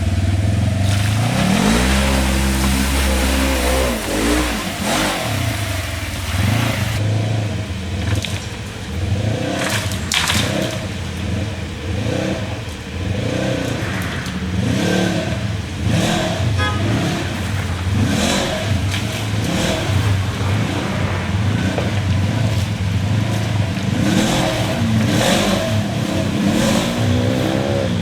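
Side-by-side UTV engine revving up and falling back again and again under load, with a few sharp knocks in the middle.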